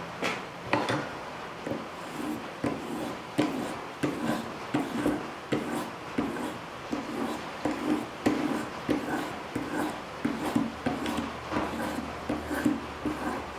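A 600-grit sharpening stone on an Edge Pro guided sharpener being stroked back and forth along a steel knife edge. It makes a rhythmic scraping of short strokes, about two a second.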